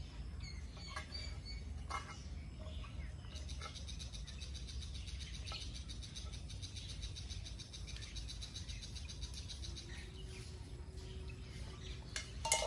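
Outdoor ambience: a high, rapid chirping trill runs for several seconds over a steady low rumble, with a few faint clicks early on and a sharper sound near the end.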